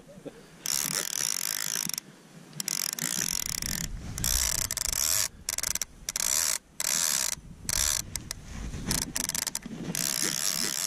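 Fly reel's click-and-pawl ratchet clicking in stretches of a second or two that stop and start abruptly, as a hooked fish is played on a fly rod.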